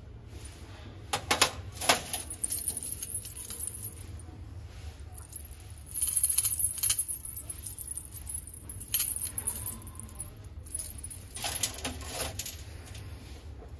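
Small metal objects clinking and jangling as they are handled, in several bouts with a few sharp knocks between them.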